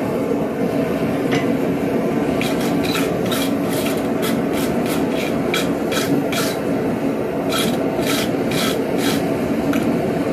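Angle grinder grinding the sharp edges off the steel reins of a pair of blacksmith's tongs: a steady running noise with a string of short rasping strokes as the disc bites the steel, most of them between about two and nine seconds in.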